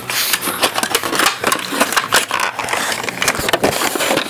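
Dense crackling and rustling pressed right against the microphone, a rapid run of irregular clicks: handling noise as the camera is covered and moved about.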